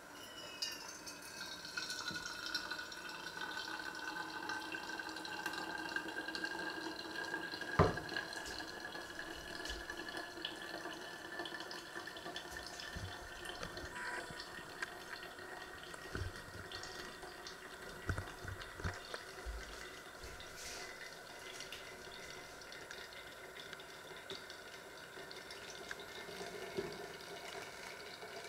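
Hot water poured from a kettle into a coffee filter cone on a mug, and coffee trickling and dripping through into the mug; a faint ringing pitch rises slowly as the mug fills. One sharp knock about eight seconds in, and a few lighter knocks later.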